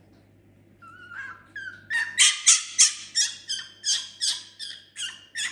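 Fennec fox giving a rapid series of short, high-pitched yipping calls, about three a second. They start faintly about a second in and turn loud a second later.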